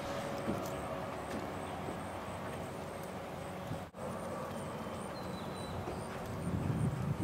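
Steady outdoor background rumble with a few faint knocks, swelling louder near the end.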